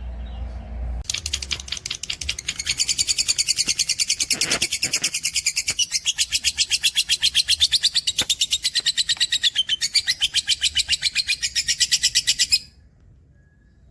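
Cage songbird delivering one long, fast trill of evenly repeated high, sharp notes lasting about eleven seconds, then stopping abruptly near the end.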